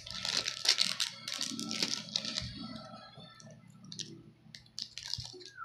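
Plastic sweets wrapper crinkling and crackling as it is handled and opened, busiest in the first couple of seconds and sparser after.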